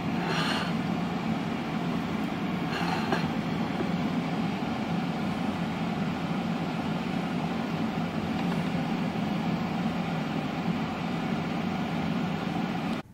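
A steady low hum of a running fan or motor, with a couple of faint light touches near the start and about three seconds in; the hum cuts off abruptly near the end.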